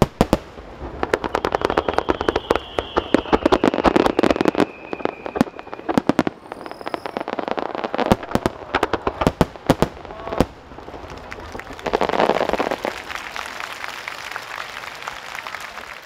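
Fireworks going off in rapid volleys of sharp bangs and crackles, with a falling whistle running through the first bursts. After about ten seconds the bangs thin out into a steadier noise that fades away.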